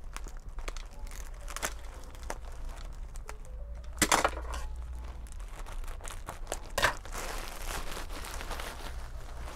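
Thin plastic mailer bag crinkling and tearing as it is ripped open by hand, with louder rips about four and seven seconds in.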